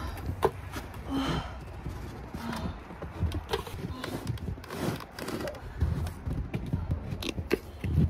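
Snow shovel scraping and scooping snow, with irregular scrapes and sharp knocks of the blade.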